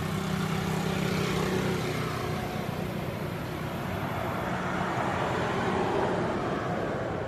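A motor vehicle's engine running with a steady low hum that fades out about four and a half seconds in, while a broader rushing noise swells near the end.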